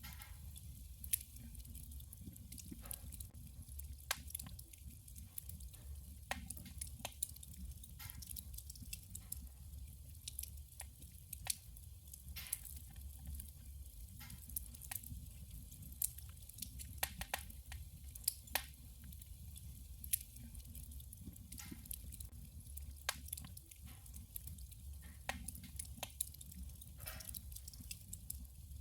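Wood fire burning in a wood stove: irregular sharp crackles and pops of the burning logs over a low steady rumble of the fire.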